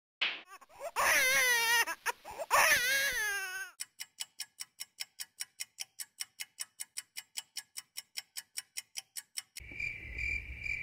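A wailing, sobbing cry sound effect that wavers in pitch. It gives way a few seconds in to a clock ticking quickly, about five ticks a second. Near the end a high electronic tone pulses like a beeping alarm.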